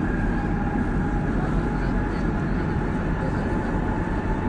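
Madrid Metro train running at speed through a tunnel, heard from inside the carriage: a steady loud rumble of wheels on rails with a thin steady whine over it.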